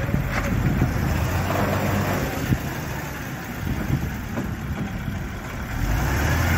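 Heavy diesel engine running steadily, getting louder about six seconds in, as the stuck, loaded tipper truck is being pulled free.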